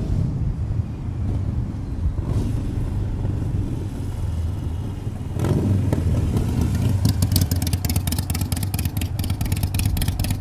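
Harley-Davidson Sportster's V-twin running through Firebrand Rip-Rod slip-on mufflers as the motorcycle rides past: a low exhaust rumble that swells as the bike comes closest about six seconds in, then carries on as it pulls away.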